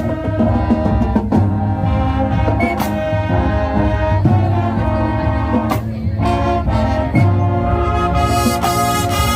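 High school marching band playing loud, held brass chords of trumpets and trombones, punctuated every second or two by drum hits, with a bright high shimmer joining near the end.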